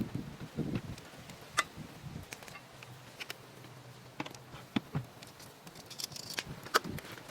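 Scattered light clicks and taps, a few at irregular intervals over a faint steady low background.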